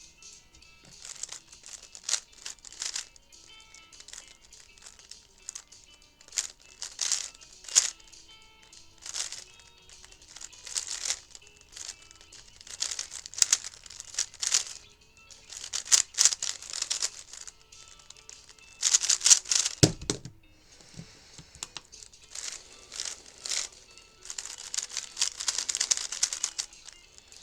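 Plastic clicking and rattling of a 3x3 speed cube being turned in quick bursts, with one heavier thump about twenty seconds in, over background music.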